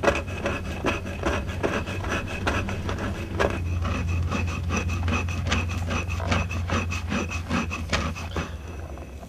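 Hand stone rubbing and scraping over a stone metate, grinding anthill stone into powder in quick even strokes, about three a second, fading near the end.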